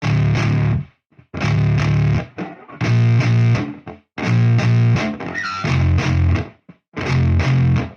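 Heavily distorted electric guitar playing short chugging chords in stop-start bursts, each under a second, with sharp silences between them.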